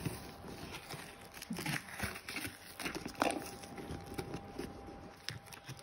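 A serrated knife cutting and scraping through packing tape and cardboard on a parcel, with tape being peeled back. Scattered small scrapes and taps, and one sharper click about three seconds in.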